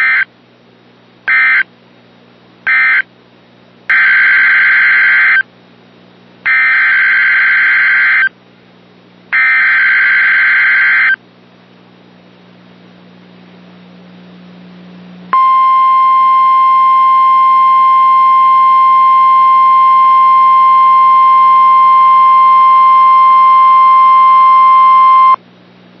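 Emergency Alert System data tones: three short buzzing bursts of the end-of-message code, then three longer bursts of the next alert's SAME header, then a steady attention tone near 1 kHz lasting about ten seconds.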